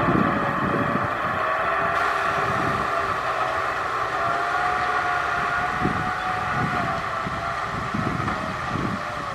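Kubota M6040SU tractor's diesel engine running steadily under load while ploughing, its pitch drifting slightly up and down.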